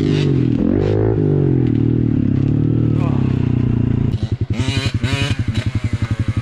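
Background music for about four seconds, then a sudden cut to a Honda CRF110 pit bike's single-cylinder four-stroke engine running at idle with an even, rapid pulsing beat, a voice briefly heard over it.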